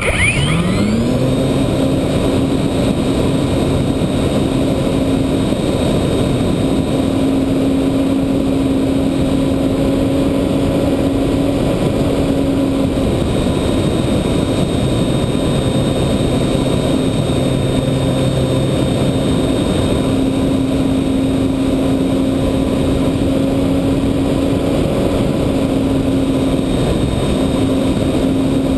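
Electric motor and folding propeller of a ParkZone Radian RC glider spinning up in the first second and then running steadily, a sustained whine over heavy wind rush from the airflow past the onboard camera.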